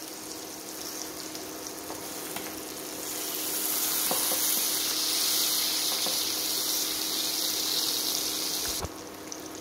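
King oyster mushroom slices searing in butter in a frying pan on an induction cooktop, sizzling steadily. The sizzle grows louder about three seconds in and drops off suddenly near the end, with a light knock just before it drops. A steady low hum sits underneath.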